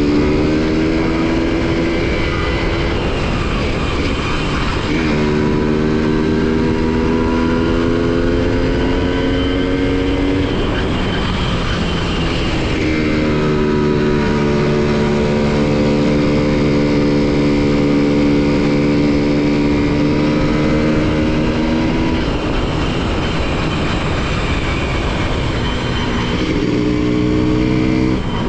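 Honda CDI-100 100cc motorcycle engine and exhaust running, its note climbing and then dropping sharply several times, with steady stretches in between.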